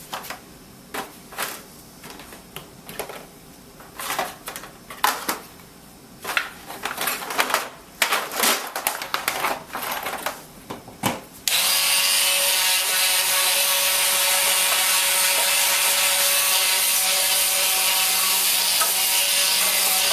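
Irregular scraping and rubbing strokes on metal. About eleven seconds in, a small power sander starts and runs steadily, taking the old gasket packing off an engine crankcase mating face.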